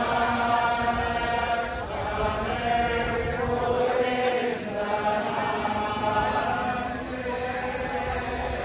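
Voices chanting together in long held tones, with short breaks for breath.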